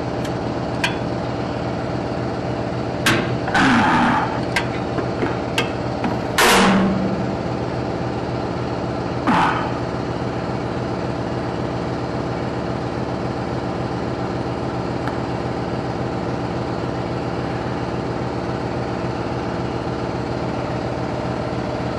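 Hand tools clanking against metal several times, loudest about three and a half and six and a half seconds in, over a steady machine hum.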